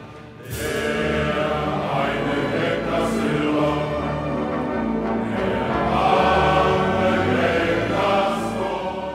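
A group of men singing together in unison or parts, holding long notes in a slow, hymn-like song.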